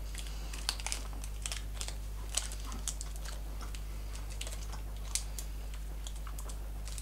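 Scattered faint clicks and crinkles of a chocolate bar's foil wrapper being handled and unwrapped, over a steady low hum.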